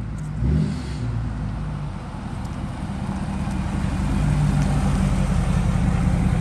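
Lifted Ford F-250 Super Duty pickup's diesel engine running as the truck drives up and passes close by, with tyre noise, growing louder about four seconds in as it comes alongside.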